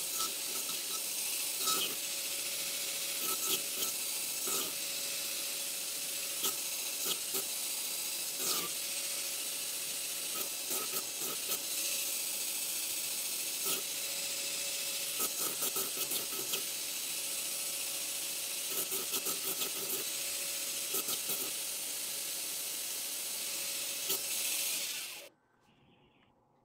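TW90 belt grinder with a surface grinding attachment running, its abrasive belt hissing steadily against a W2 steel knife blade over a steady hum, with scattered clicks and ticks as the blade is worked across the belt. The grinding cuts off sharply near the end.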